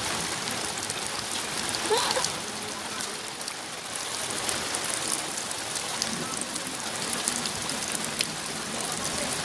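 Steady rain falling on wet concrete pavement and puddles, an even hiss scattered with small sharp ticks. A brief faint sound rising in pitch comes about two seconds in.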